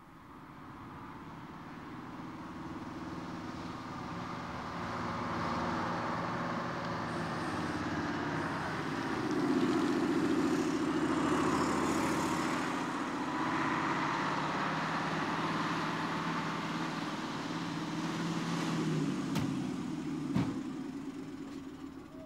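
A coach bus engine and a car engine come closer, growing louder over the first ten seconds, pass close, and keep running with a steady low hum. Two sharp knocks near the end.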